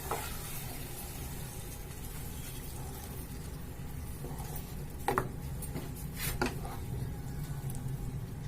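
A spoon slowly stirring a watery vegetable-and-sauce mix simmering in a pan over a low flame, with two light knocks of the spoon against the pan about five and six and a half seconds in.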